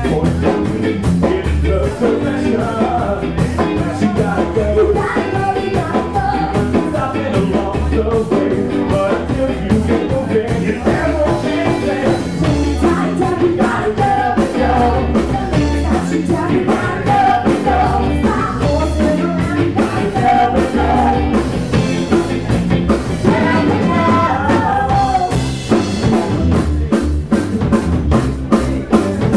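Ska band playing live and loud: electric guitar, drum kit, trumpet and saxophone, with singing.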